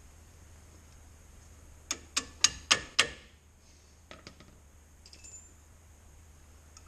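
Five sharp metal taps about a quarter second apart, then a few faint clicks: the top retaining pin being worked into a brake caliper through the new pads.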